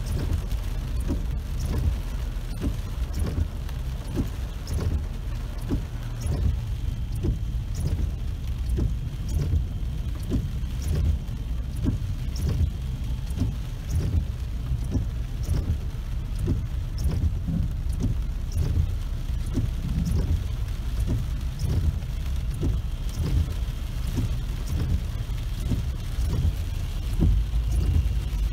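Heavy rain hitting a car's roof and windshield in separate, irregular drops, heard from inside the car over a steady low rumble of the vehicle and traffic.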